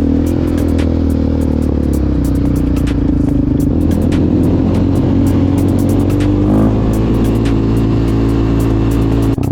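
Quad bike engine running at a steady speed, its pitch stepping up slightly about two-thirds of the way through.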